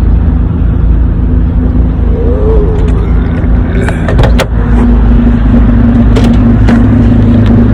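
Toyota 2JZ inline-six engine running in a pickup truck with a freshly rebuilt transmission. It is a steady, loud drone, and it grows a little fuller about halfway through.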